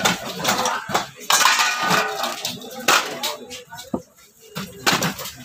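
Heavy knife blade chopping through a large katla carp's head and bone on a wooden block: a series of sharp knocks about a second apart, with voices in the background.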